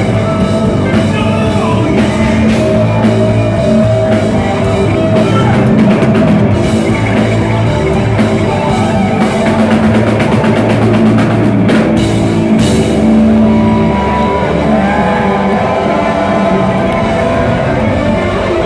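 Live heavy rock band playing loud: distorted electric guitar, bass guitar and a drum kit, with keyboards, full band in full swing.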